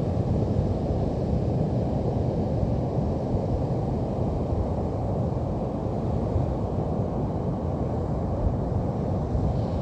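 Steady low rumble of wind on the microphone over Pacific Ocean surf.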